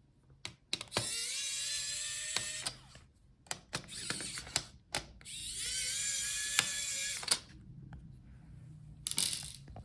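Small electric screwdriver backing screws out of a laptop's plastic bracket, spinning up with a rising whine in two runs of a couple of seconds each, with clicks and taps of the bit and parts in between.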